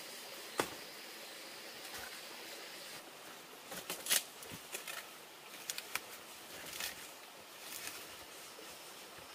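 Scattered clicks and rustles over a steady outdoor hiss: one sharp click about half a second in, then a cluster of louder clicks around four seconds and a few smaller ones after.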